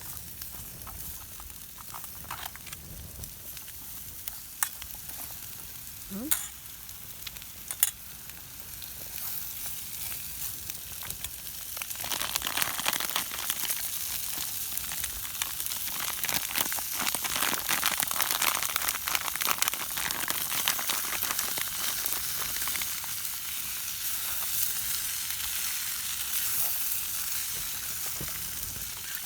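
A paneer and noodle stir fry sizzling in a camping pot; the sizzle turns louder and denser about twelve seconds in. Three sharp clicks sound in the first eight seconds.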